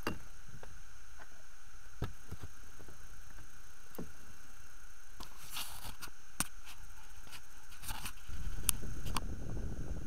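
Scattered small clicks and knocks of handling in an inflatable boat as a caught pike is held over the landing net, over a steady faint whine. Near the end a louder low rush of wind on the microphone takes over.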